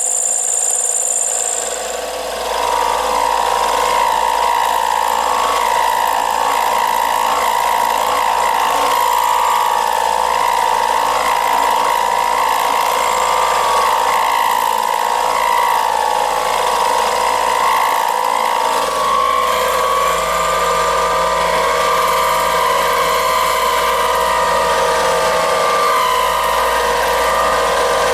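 Milling machine taking a quarter-inch-deep cut in brass: the spindle and cutter make a steady pitched whine. A high whistle cuts off about two seconds in, and the whine settles in soon after.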